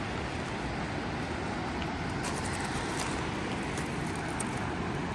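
Tuolumne River rapids rushing in a steady, even roar, with a few faint ticks about two to three seconds in.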